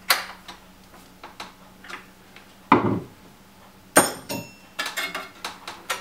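Metal hand tools clinking as a wrench is picked up from among other tools on a worktable. There is a dull knock just under three seconds in, a sharp ringing metal clink at about four seconds, then a run of light clicks.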